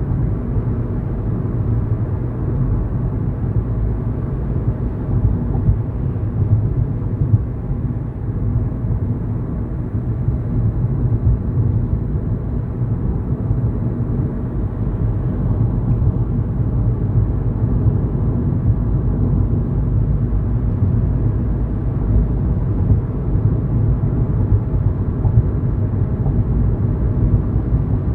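Steady low rumble of a car driving at road speed, tyre and engine noise with no sharp events.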